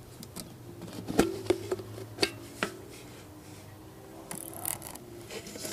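A few sharp clicks and taps from a metal target being handled and picked at to get the airgun pellets out of it, about four in the first three seconds, then a short rustle.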